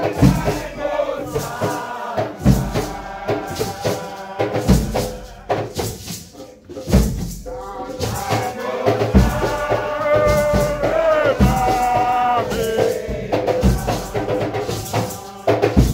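Nyahbinghi chant: a group singing over a deep drum struck about every two seconds, with quicker, lighter percussion strikes in between.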